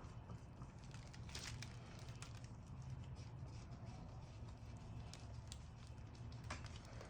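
Faint scattered clicks and light taps of hands handling parts, over a steady low hum.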